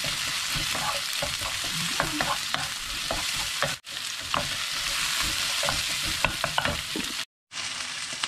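Sliced onions, fingerroot and pounded chilli-garlic paste frying in hot oil in a non-stick wok, sizzling steadily, with a wooden spatula scraping and knocking against the pan as they are stirred. The sound cuts out briefly near the end.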